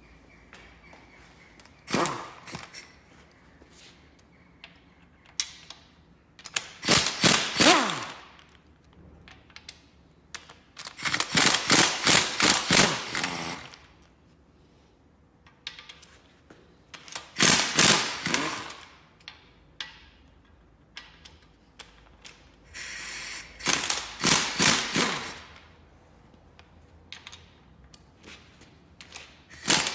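A power wrench undoing bolts on the top of a Ford Fiesta 1.3 cylinder head, run in repeated short bursts of rapid clattering, each one to two and a half seconds long, with pauses of a few seconds between them.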